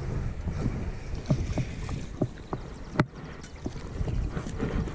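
Wind rumbling on the microphone, with scattered light knocks and clicks from handling the rod and camera; one sharper click about three seconds in.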